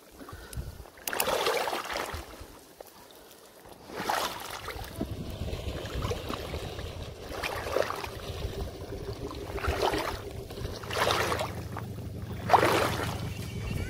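Water sloshing and swishing in separate surges every couple of seconds as someone wades through deep water, over a faint low steady hum.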